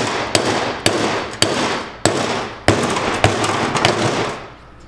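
Mallet blows on the axle shaft in a 2012-and-up half-ton Dodge Ram front axle housing, driving the shaft and its roller bearing down out of the housing. It is a string of sharp strikes about two a second, each ringing briefly, and they stop shortly before the end.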